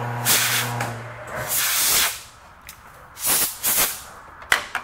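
Compressed-air blow gun clearing chips off a freshly turned part on the lathe, in several short hissing blasts. The lathe's steady motor hum stops a little over a second in, and there is a sharp click near the end.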